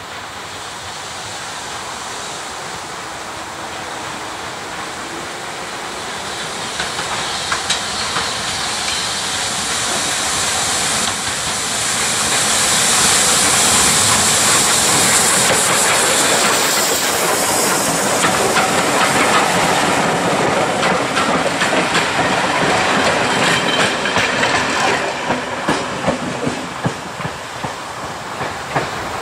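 Saddle-tank steam locomotive hauling passenger coaches passes close by. A hiss of steam grows louder as it comes up and is loudest as it passes midway through, then the coach wheels click rhythmically over the rail joints as the train moves away and fades.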